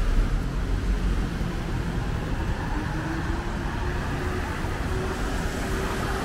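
City street traffic: a steady low rumble of passing vehicles, with an engine note slowly rising in pitch from about halfway through.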